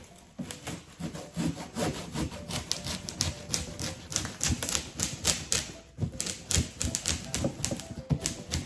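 Knives cutting and scraping through the cardboard and packing tape of a large box: a quick, irregular run of short, sharp scratching strokes.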